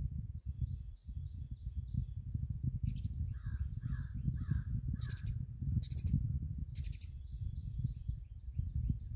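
Birds calling in the woods: four caws from a crow in the middle, after a quick run of high chirps near the start, and a few short harsh calls toward the end. A steady low rumble on the microphone lies underneath.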